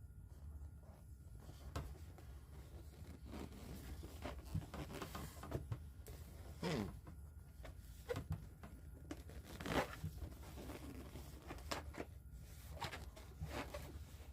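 Inflated Gemar latex bird balloon being handled and twisted, giving scattered short squeaks and rubbing sounds of latex against latex and hands. A low steady hum runs underneath.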